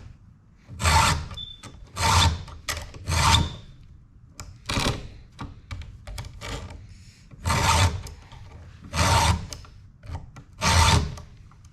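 A file being pushed across the cutter teeth of a ripping chain, sharpening it by hand: about seven separate rasping strokes, three in quick succession about a second apart, then four more with longer pauses between.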